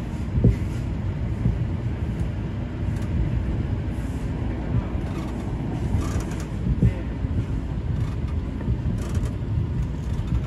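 Seibu 20000 series electric train running at speed, heard from inside the front car: a steady low rumble of the wheels on the rails, with a few sharp knocks.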